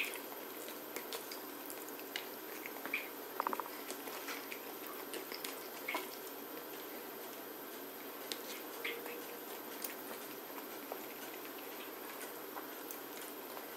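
Eating sounds of a person eating rice and fish by hand: scattered soft smacks and clicks of chewing and fingers working food on a plate, over a steady hiss.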